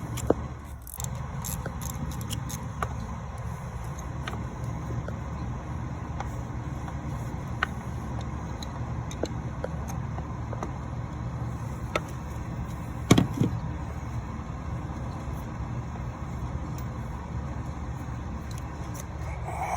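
Scattered metallic clicks and knocks of a socket, extension and wobble joint worked by hand to remove an oil pressure sending unit from the back of an LS V8, the loudest knocks about 13 seconds in, over a steady low rumble of background noise.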